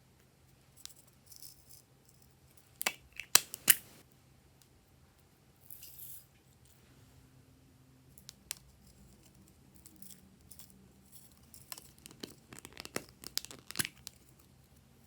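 Glossy slime being worked by hand: scattered sharp clicks and crackly pops in two clusters, about three seconds in and again near the end, with a brief rustle in between.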